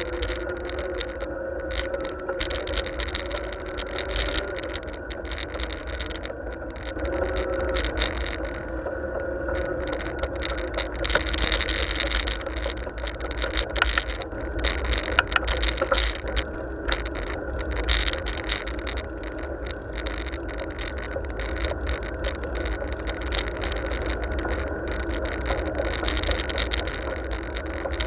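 Bicycle rolling along a tarmac road, heard from a camera mounted on the bike: a constant low rumble of wind on the microphone, a steady hum, and dense rattling and clicking as the bike jolts over the road surface.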